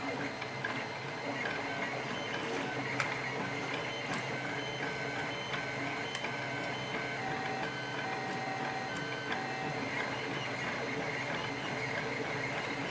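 Two printers running: a steady whir with short, level motor whines that step between pitches. A few sharp ticks come about three, four and six seconds in.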